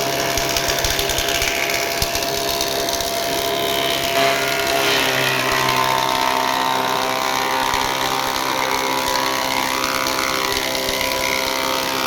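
Woodworking power tool running steadily with a constant motor hum, its sound changing about four seconds in.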